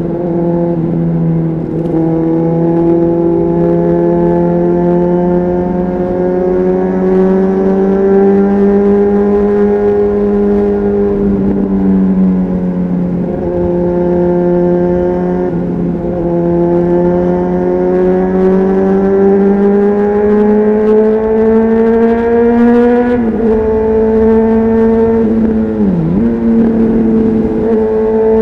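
Honda CBR600RR inline-four engine with a Leo Vince aftermarket exhaust, heard on board while riding. The pitch climbs and eases gently, with several brief dips as the throttle rolls off or a gear changes, and a deeper dip near the end.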